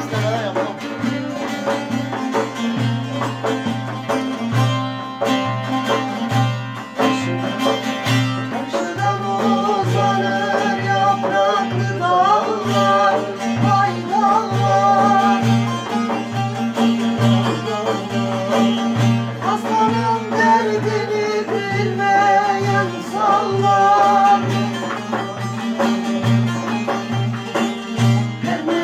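Turkish folk music played on bağlamas (long-necked saz lutes) over a steady frame-drum beat. A singing voice joins about nine seconds in.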